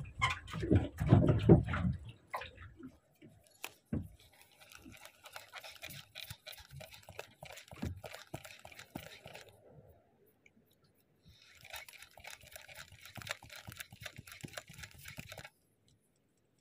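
Spinning reel being cranked while a lure is jigged, a faint fine ticking and rustle in two spells that cuts off suddenly near the end. The first couple of seconds hold louder handling noise.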